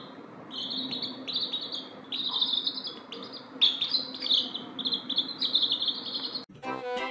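Baby chickens peeping: a rapid string of short, high calls, each falling in pitch, several a second. About six and a half seconds in it cuts off and accordion music begins.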